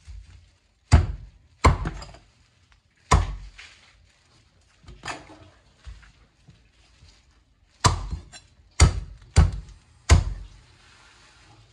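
Knife chopping boiled chicken on a cutting board: about eight heavy, irregularly spaced chops, several coming in quick succession near the end.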